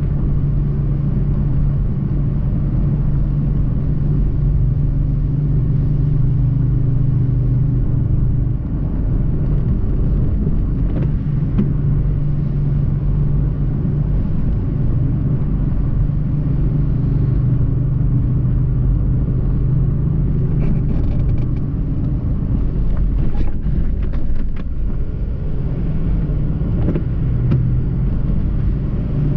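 Car driving slowly, heard from inside the cabin: a steady low engine hum with even road noise, and a few faint clicks about two-thirds of the way through.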